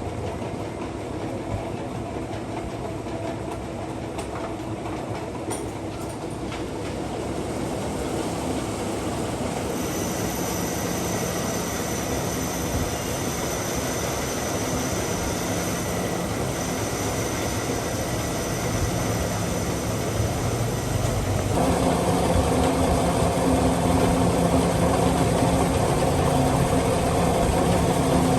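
Metal lathe running steadily, machining a bush for a motorcycle wheel hub's bearing housing. A high thin whine joins about ten seconds in, and the machine grows louder and fuller about two-thirds of the way through.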